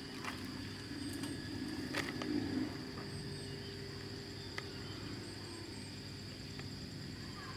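Insects droning steadily in the background, one continuous high tone, with a few faint clicks.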